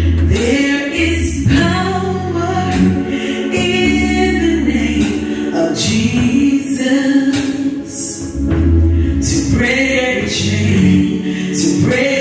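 Gospel group singing into microphones, women's voices leading, over low sustained bass notes.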